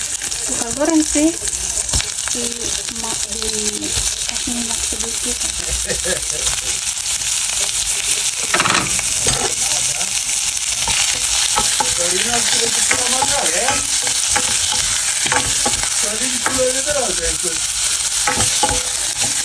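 Prawns sizzling steadily in hot oil in a small stainless steel frying pan, par-frying until half cooked. A spoon stirs and scrapes against the pan now and then, with a louder scrape about halfway through.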